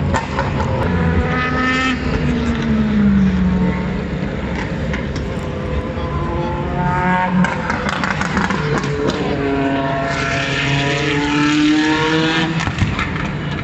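DTM race cars' 4.0-litre V8 engines passing at speed, one after another, their pitch rising and falling with gear changes and as they go by. A few short sharp cracks are mixed in, the backfire pops of these cars.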